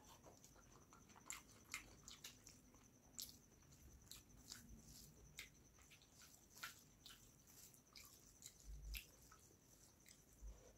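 Faint, wet eating sounds: irregular short clicks and squishes as rice and fish curry are mixed by hand and chewed.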